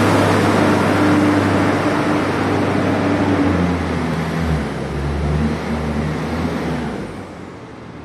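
An engine running steadily under a loud rushing noise; its low hum shifts in pitch about halfway through, and the sound fades near the end.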